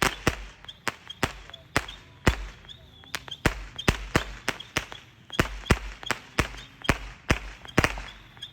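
Consumer fireworks going off: a rapid, irregular string of sharp bangs, about three a second, some with a deeper thump. The loudest bang comes a little over two seconds in.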